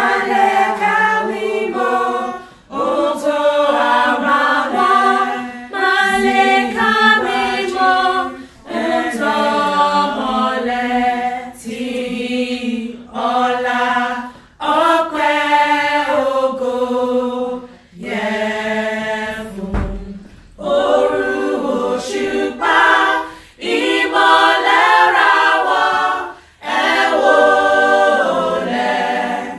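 Choir singing a hymn unaccompanied, in phrases of a few seconds with short breaks between them.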